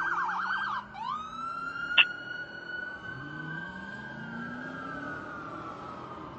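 Fire engine siren on an emergency run: a fast yelp that breaks off just under a second in and switches to a slow wail, rising and then falling gradually. About two seconds in there is a brief sharp blip, and the engine note rises underneath.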